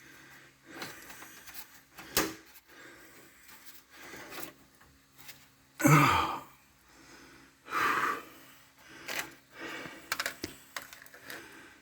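A man's heavy breaths, loudest about six and eight seconds in, among scattered clicks and knocks as he shifts about and handles things.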